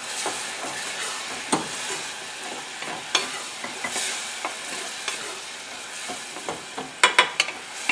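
Chopped apples with sugar and a little water sizzling in a stainless steel saucepan, stirred with a wooden spoon that scrapes and knocks against the pan. A few louder knocks come close together near the end.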